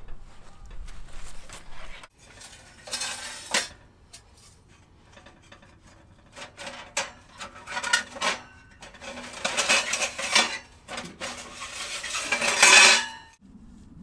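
Metal parts of a Winnerwell wood stove clinking, scraping and rattling as they are handled, in several bursts, the loudest near the end.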